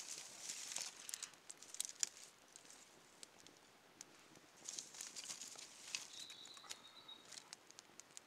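Small stick fire of dry grass and thin twigs crackling, with snaps and rustles as more twigs are fed onto the flames. The crackles come in two clusters, one in the first two seconds and another from about four and a half seconds in.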